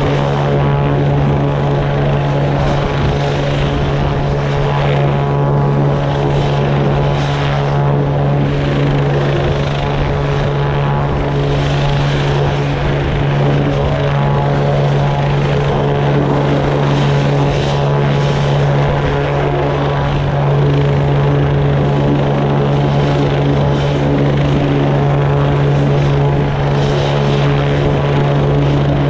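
Helicopter running on a ship's helideck: a loud, steady drone with a strong low hum and a stack of steady higher tones, unchanging throughout.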